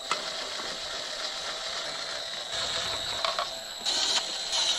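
Cordless electric ratchet running, spinning oil pan bolts in: a steady motor whir that grows louder twice near the end.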